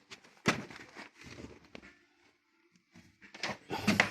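Handling noise from a plastic sled tub being moved and set in place: a sharp knock about half a second in, scattered scrapes and rustles, then a cluster of knocks near the end.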